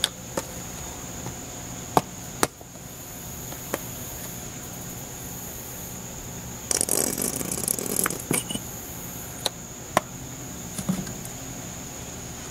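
Plastic squeeze bottle of mustard: sharp clicks of its flip-top cap being opened and snapped shut, and about two seconds of sputtering squirt midway as it is squeezed over the pan.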